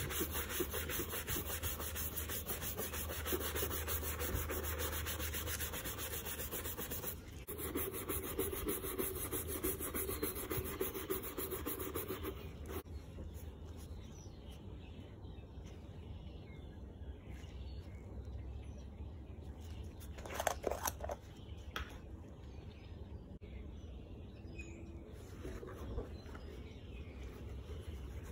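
Horsehair brush scrubbing rapidly back and forth over a leather bag, with a short break partway, for about twelve seconds. It is followed by quieter handling, a short louder sound about twenty seconds in, and gloved fingers softly rubbing cream into the leather near the end.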